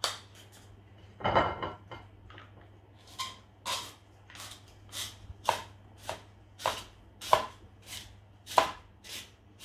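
Zucchini being twisted through a Tupperware Spirali hand-held spiral slicer with the coarse insert. A couple of knocks come first, then from about three seconds in a short, crisp cutting rasp with each turn, about every half second.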